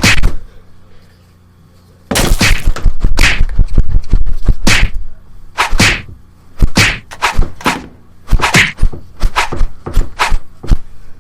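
Film-style fight sound effects: punch impacts. A single hit, a pause of about two seconds, a rapid flurry of blows for about three seconds, then single punches landing every half second to a second.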